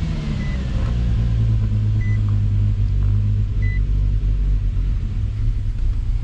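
Infiniti G35's 3.5-litre V6 idling just after a restart, with part of its intake off, which the engine doesn't like and which lets it suck in air. Three short high beeps sound over it.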